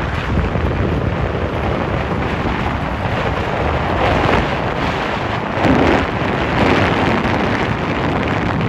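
Steady wind buffeting on the microphone from a moving vehicle, over the rumble of the vehicle driving, with a few louder gusts.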